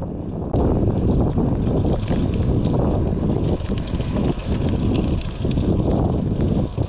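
Wind buffeting a chest-mounted microphone on a moving road bike, a loud low rumble with tyre noise and scattered small clicks from the rough road. It gets louder about half a second in.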